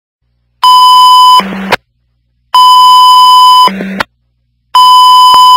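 Fire dispatch alert tones over a radio: loud steady high beeps, each about a second long with silence between, the first two each followed by a short, quieter low tone.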